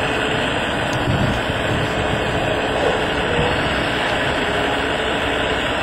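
Radio-controlled Wedico Cat 345D model excavator's hydraulic system running steadily as the arm works over the dump trailer, a continuous whirr with a faint steady whine.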